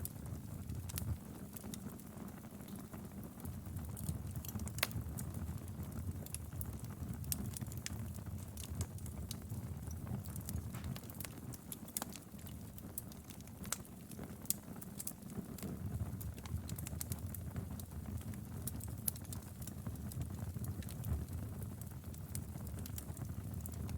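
Wood fire crackling in a fireplace: irregular sharp pops and snaps over a steady low rumble of the flames, with a few louder pops.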